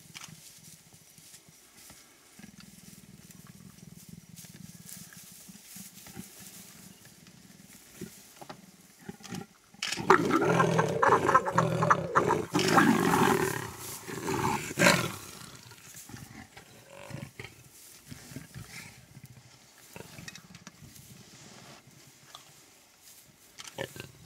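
A pair of leopards growling loudly during mating, a burst of rough growls lasting about five seconds from about ten seconds in.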